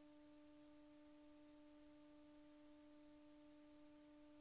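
Near silence with a faint, steady, unchanging tone that has a few overtones.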